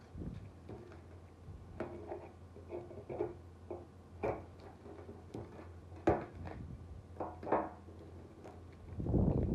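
A thin blade prying the handle scale off a rusty knife tang: irregular clicks, scrapes and small creaks of steel working against the handle and metal, with a louder burst of handling noise near the end as the scale comes free.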